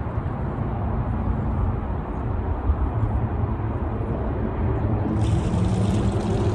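Steady low rumble of wind buffeting the microphone, with a faint hum coming in from about halfway.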